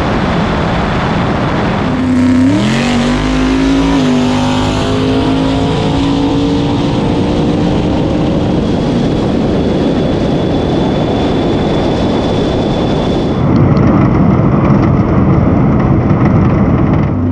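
Nitrous Ford Fairmont drag car's engine launching about two seconds in, its pitch climbing steadily as it pulls down the quarter mile and then fading into a rushing noise. Another launch begins at the very end.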